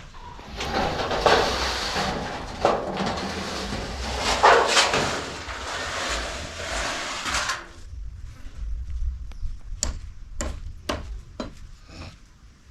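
A few seconds of rough scraping, rustling noise, then a run of sharp, separate knocks, several a second apart.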